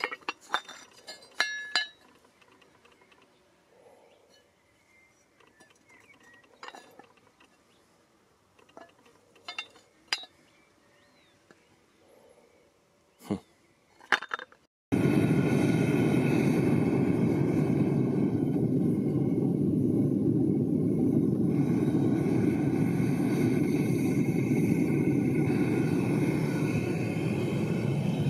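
Small metal pieces clink and tap against each other, a few sharp clinks spread over the first half. About halfway through, the gas burner of a metal-melting furnace starts running, loud and steady, and continues.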